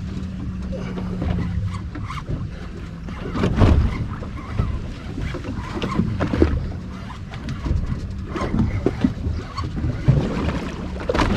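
Wind and water noise aboard a fishing boat on open water, with scattered knocks. A low steady hum stops about two seconds in.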